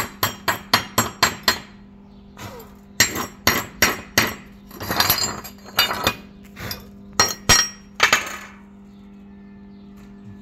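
Steel chipping hammer knocking slag off a fresh weld bead: quick even taps, about four a second, for the first second and a half, then after a pause irregular knocks and scrapes until about eight seconds in. A steady low hum runs underneath.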